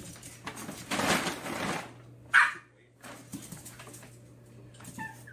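A small dog at play, with scuffling and one sharp, short yip about two seconds in and a faint squeak near the end. A steady low hum runs underneath.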